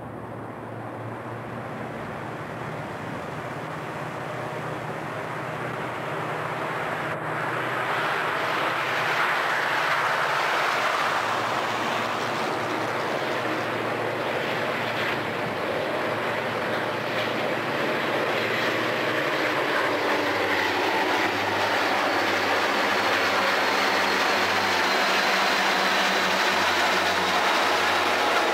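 Rio Grande diesel-electric freight locomotives running as they approach, their engine sound growing steadily louder over the first ten seconds or so, then holding steady as the lead units pass close by.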